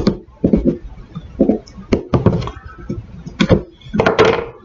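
Irregular light knocks and handling clatter of small parts being worked by hand at a bench, with a longer, louder rustle about four seconds in.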